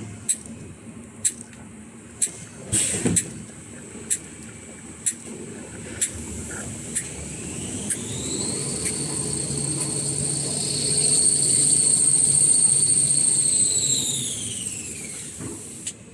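Kitchen towel paper rewinding machine clicking about once a second with a short hiss of air, then a whine that rises as the machine speeds up, holds steady, and falls away as it slows down near the end.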